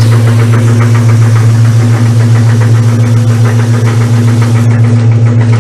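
Old Brastemp Luxo washing machine running: a loud, steady electric motor hum with a rapid, even rattle over it.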